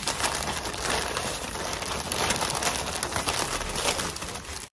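Flower wrapping paper crinkling and rustling in a continuous dense crackle as a bouquet is wrapped by hand.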